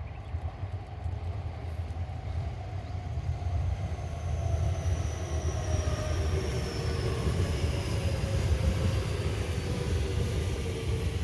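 Electric multiple unit passing through a station without stopping: a steady low rumble of wheels on rail grows louder under the slowly falling whine of the traction motors.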